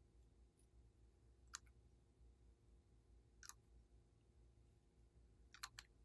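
Near silence: a low steady hum with a few faint, sharp clicks, about a second and a half in, again at three and a half seconds, and a quick pair near the end. These are small handling clicks of a bottle of blue colour and its brush-cap applicator.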